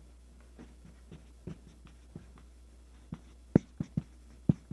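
Dry-erase marker writing on a whiteboard: a string of short squeaks and taps as the letters are drawn, with a few sharper taps in the second half.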